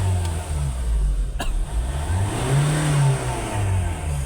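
2014 Ford Ranger's diesel engine running and being revved, its pitch swelling up and dropping back twice, now running again after a fuel system repair with new injectors, fuel rail and pressure pump. A sharp click about a second and a half in.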